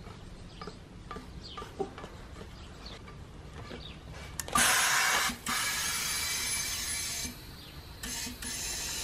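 Compressed air hissing from a tyre inflator gun, blowing air into a stretched tyre whose bead gap is sealed with a bicycle inner tube. The hiss starts suddenly about halfway through, is loudest for the first second, then runs on more quietly, stops briefly and starts again near the end.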